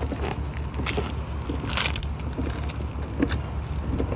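A steady low mechanical hum with an even pulse, with scattered clicks and knocks over it and a brief hiss about two seconds in.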